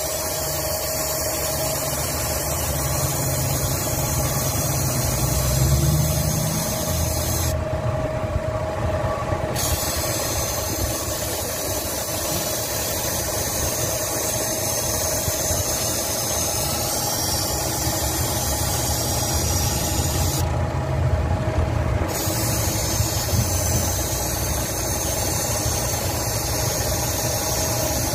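Car engine idling with a steady hiss of refrigerant venting from the air-conditioning low-pressure port through a recharge gauge hose, bleeding old gas out to bring the system pressure down before recharging. The hiss cuts out twice for a second or two.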